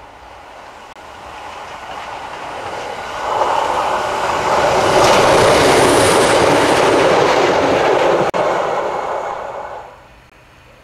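A DB class 628 diesel railcar passing over points and crossings, its wheels rattling across the rail joints. The noise swells about three seconds in, stays loud through the middle and dies away near the end.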